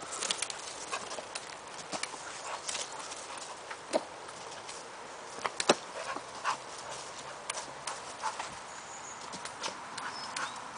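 A bulldog-type dog jumping and landing again and again while it snaps at a toy hung from a branch: irregular sharp clicks and knocks from its paws on leaf litter and from the shaken branches. Two knocks in the middle stretch are louder than the rest.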